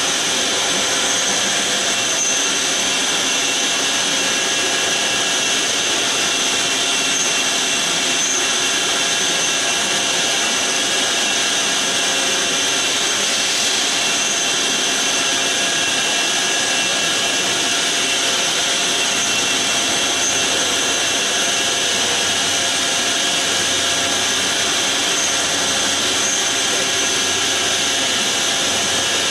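Hyundai-Kia SKT-21LMS CNC lathe running with a turret tool at the face of a disc held in the main spindle chuck: a steady machine noise with a high whine.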